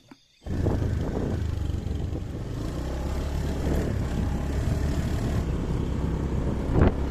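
Motorcycle engine running steadily while riding, with rushing noise over it; it starts abruptly about half a second in, and there is a louder knock near the end.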